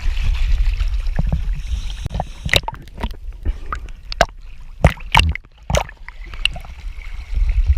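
Water splashing and sloshing over a low rumble, with a few sharp slaps: one about two and a half seconds in and a cluster around five to six seconds in.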